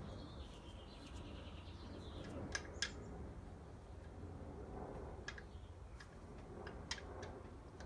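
A handful of light clicks and taps as a Chevrolet LT1 Optispark distributor is worked by hand onto the engine's front cover and its drive pin.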